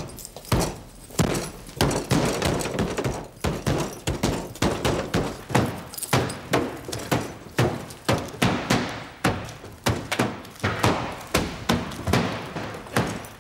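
A heap of fresh tomatoes being pounded to a pulp: a long run of wet thumps, about two a second.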